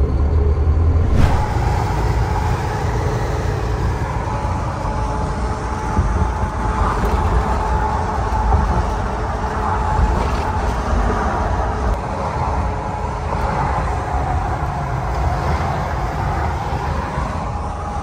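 Steady motor-vehicle noise, a low rumble under an even hiss with a faint steady hum, setting in about a second in.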